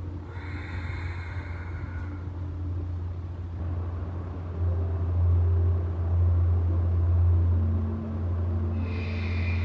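A steady low rumble that grows louder about halfway through, with faint higher tones near the start and again near the end.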